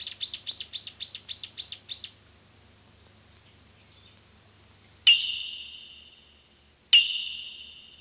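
A bird calling a fast run of about ten sharp, high, downward-sliding notes over two seconds. Then two single sharp strikes about two seconds apart, each ringing on and fading away.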